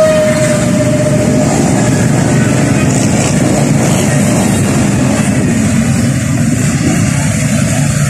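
Steady engine and road rumble from riding in a moving vehicle through street traffic, with one held tone fading out about a second in.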